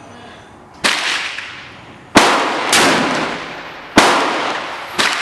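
Gunshots: about five sharp reports roughly a second apart, each trailing off in a long echo.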